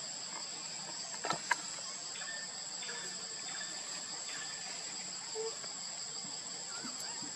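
Steady high-pitched drone of forest insects, two unbroken tones held throughout, with two short clicks about a second and a half in.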